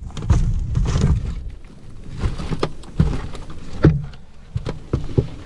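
Irregular knocks and thumps of people moving about and handling gear in an inflatable rubber boat, over a low rumble.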